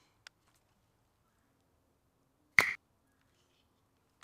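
A BB gun firing once: a single short, sharp snap about two and a half seconds in, with a faint click just before.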